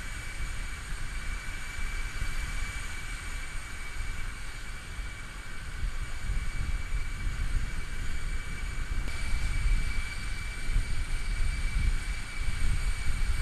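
Steady high-pitched whine from the parked Antonov An-124 cargo plane, over a low rumble.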